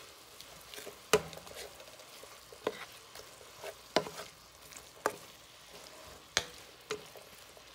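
Ground turkey with diced onion and green onion sizzling in a nonstick frying pan, stirred with a wooden spoon that knocks against the pan about six times.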